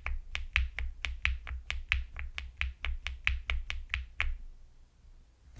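Elecfox Inky75 mechanical keyboard: the up-arrow key, held with FN, pressed over and over, about three clacky keystrokes a second, stopping about four seconds in.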